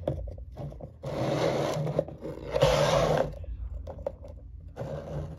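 Things being slid and scraped across a desktop: two longer scraping noises about a second in and just past the middle, a shorter one near the end, and small knocks in between.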